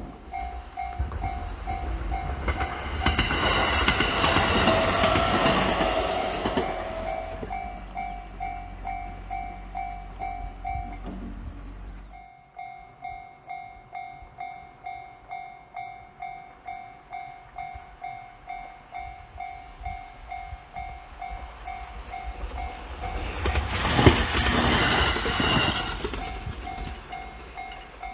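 Japanese level-crossing warning bell ringing in a steady electronic ding about twice a second while an electric train on the JR Oito Line runs past twice, in the first few seconds and again near the end. The bell breaks off briefly about twelve seconds in and starts again.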